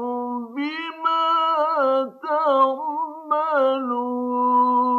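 A man's solo voice chanting Quran recitation in the melodic tajweed style. He sings the word 'bimā' with long held notes and ornamented melodic turns, with a brief break for breath about two seconds in.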